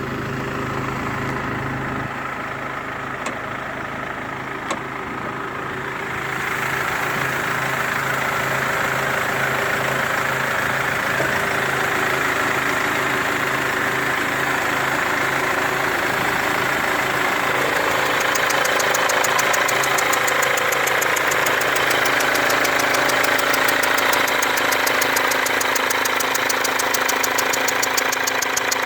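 Mercedes W204 C-Class diesel engine idling with a loud, rapid ticking and a whistle from a leaking fuel injector: gas escaping past the injector's seal. The sound grows louder a few seconds in, and the fast ticking comes through more sharply in the second half.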